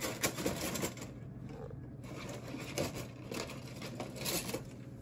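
Plastic spoon scraping the yolk out of a halved hard-boiled egg, with light scrapes and small clicks against a plastic bowl, in a few short clusters.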